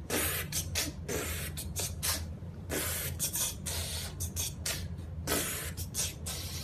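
A child making DJ noises with his mouth: quick, irregular hissing bursts, several a second.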